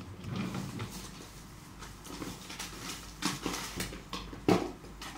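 Hands working at a new watch-battery package, trying to open it: plastic and card rustling with irregular taps and clicks, and a sharp knock near the end.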